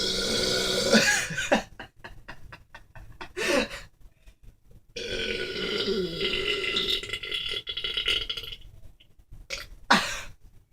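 A man belching on command: a long drawn-out belch, another long one about five seconds in, with a short burp between them and another near the end.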